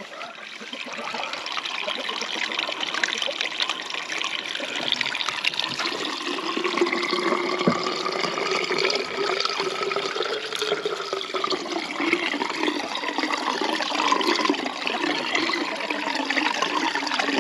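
Pumped creek water pouring from a hose into a rain gutter and running toward its drain. It splashes and trickles steadily after building up over the first couple of seconds.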